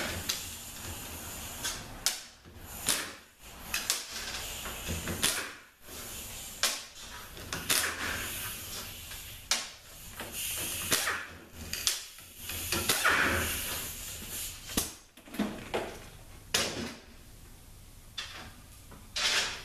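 Irregular clinks, knocks and scrapes of metal tools and parts as the oil pump of a Chrysler 604 automatic transaxle is taken apart.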